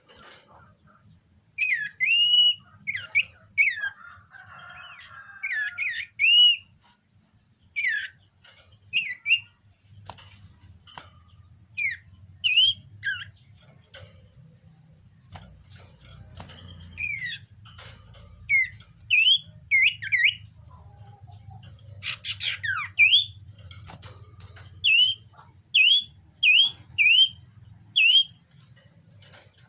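Cipoh (iora) in breeding condition calling: short, clear whistled notes that sweep up or down, given in quick clusters, with a steady run of evenly spaced notes near the end.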